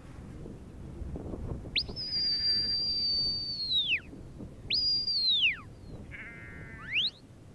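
Sheepdog handler's whistle commands to a working Border Collie: a long high steady note that falls away at the end, then a shorter note that drops off, then a quick rising note near the end.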